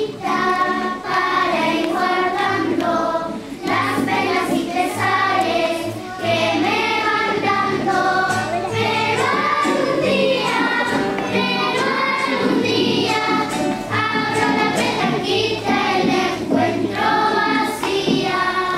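Children's choir singing a song together, over low held accompaniment notes.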